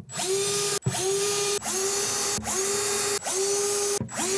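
Electric drill run in short repeated bursts, about five, each motor whine rising quickly in pitch as it spins up and then holding steady before the trigger is released.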